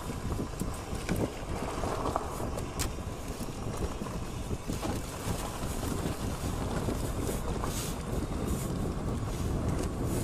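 Wind buffeting the microphone and tyres rumbling over a rutted dirt trail as an e-bike rides along, with frequent small knocks and rattles as the bike jolts over bumps.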